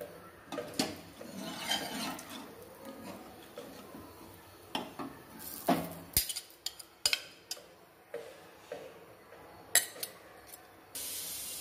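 A steel ladle and spoon stirring sambar in a pressure cooker, the metal clinking and scraping against the pot at irregular moments. A steady hiss starts near the end.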